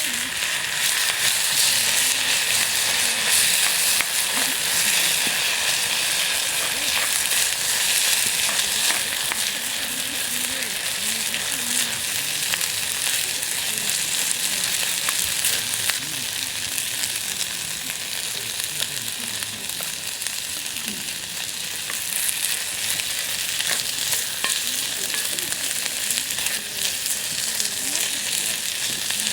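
Food sizzling in a hot cast-iron skillet over a campfire: a steady, loud hiss with scattered sharp ticks and pops.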